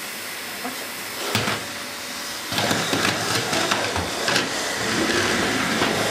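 Vacuum cleaner running with a steady hissing whoosh, becoming louder and fuller about two and a half seconds in, with a few short knocks.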